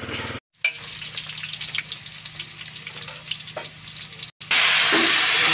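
A low hum with a few faint ticks, then about four and a half seconds in a loud, even sizzle starts suddenly: kangkong (water spinach) frying in hot oil in a pan for adobong kangkong.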